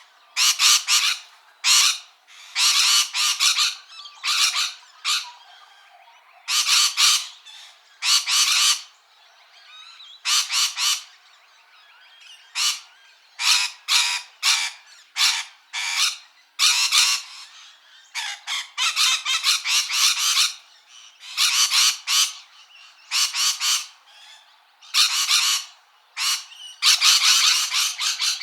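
Parrot squawking over and over: harsh calls, each well under a second, coming in an irregular series, some in quick runs of two or three, with short pauses between.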